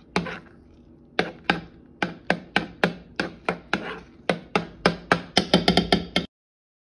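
Metal spoon knocking and scraping against a nonstick saucepan while stirring and mashing thick mashed potato, about three to four knocks a second, coming faster near the end before cutting off abruptly.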